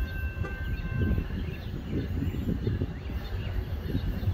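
Birds chirping over an uneven low rumble, with a faint steady high tone that stops about a second in. A freight train is still far off down the line.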